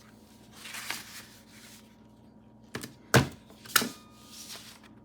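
Vintage desk stapler pressed down onto paper, closing with sharp clacks, the loudest about three seconds in, after a brief rustle of paper. The stapler works properly, stapling cleanly.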